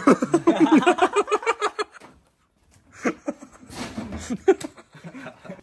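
People laughing: a burst of quick repeated laughter, then after a short pause about two seconds in, more laughter and voices.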